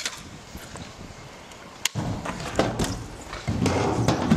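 Stunt scooter landing hard on concrete with a sharp smack about two seconds in, then its small hard wheels rolling across the skatepark concrete with a rough rumble and a few knocks, loudest near the end.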